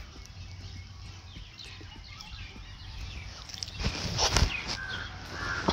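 Birds chirping and calling outdoors over a steady low background, with a short loud cluster of knocks about four seconds in.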